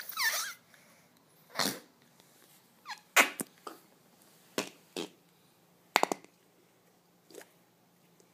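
A string of about ten short fart noises at irregular intervals. The first is longer, with a wavering pitch; the rest are brief blasts, two close pairs among them.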